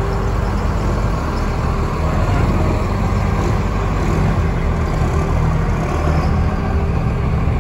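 Engines of lowered vintage trucks, an International cab-and-chassis truck and a late-1950s Chevrolet pickup, rumbling steadily as they drive slowly past on a brick street.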